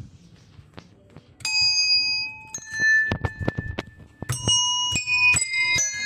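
Small tuned handbells struck one after another, about six notes at different pitches that each ring on and overlap. They start about a second and a half in and come faster near the end, with low knocks from handling before and between them.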